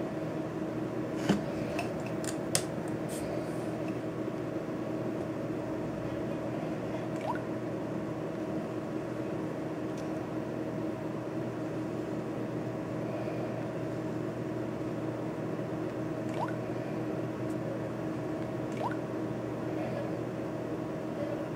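Steady background hum with a few short clicks from a finger tapping through a smartphone's touchscreen menus; the two loudest clicks come between one and three seconds in, fainter ones later.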